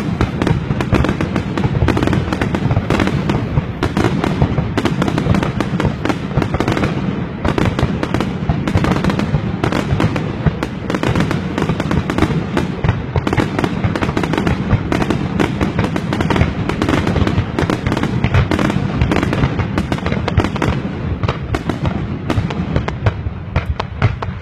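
A New Year fireworks display in a dense, unbroken barrage: many bangs and crackles a second with no pause, the finale of the show.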